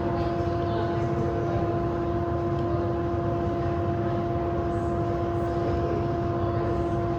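A steady mechanical hum at one constant pitch over a low rumble.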